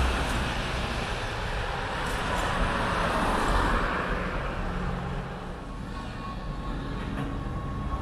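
Road traffic: cars passing on a multi-lane street, one vehicle swelling and fading past about two to four seconds in.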